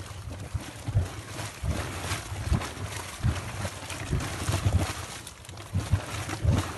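Boiling mud bubbling and plopping irregularly deep inside a steaming Yellowstone mud pot vent, over a steady hiss.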